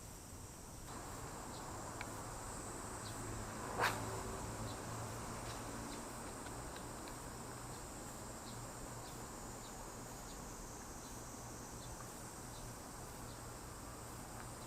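Insects, likely crickets, chirring steadily and faintly outdoors, with faint regular ticks, and one sharp click about four seconds in.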